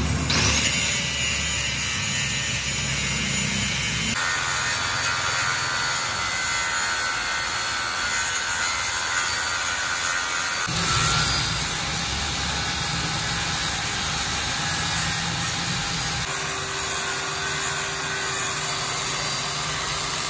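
Electric angle grinder running and grinding the rusty cast rear axle housing of a tractor: a steady high whine with the rasp of the disc on metal, changing abruptly a few times.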